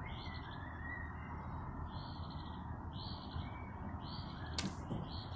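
A bird calling, a short high note repeated about once a second. A single sharp click comes about four and a half seconds in.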